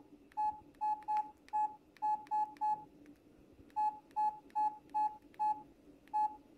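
Samsung SCH-U320 flip phone's keypad beeping as its keys are pressed: about a dozen short beeps, all at the same pitch, two or three a second, with a pause of about a second near the middle.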